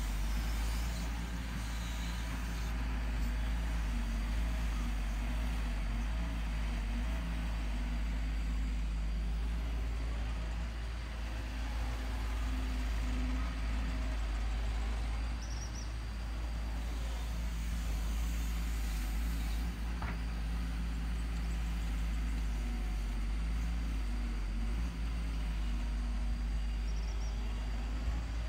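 Diesel engine of a wheeled excavator running as it digs and swings loads of soil, its note strengthening and easing with the work.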